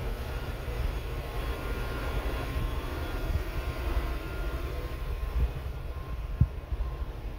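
Steady low rumble of indoor background noise, with one short thump about six seconds in.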